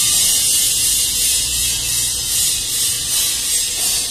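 A loud, steady, high-pitched hiss that wavers slightly in level.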